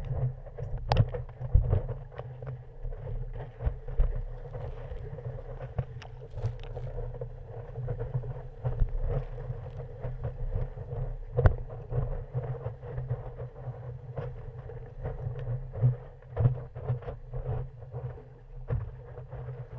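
Muffled rush of breaking whitewater and water streaming past a stand-up paddleboard riding a wave, picked up by a camera mounted low on the board, with frequent knocks and splashes of spray hitting it.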